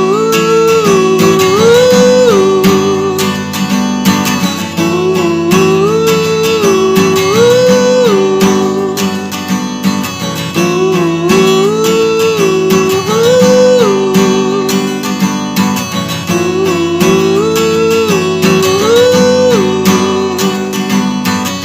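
Instrumental break of a song: strummed acoustic guitar carrying a steady rhythm under a short lead melody that steps up and back down, played four times over.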